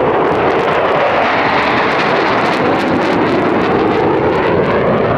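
Large stadium crowd cheering and applauding, a steady loud roar.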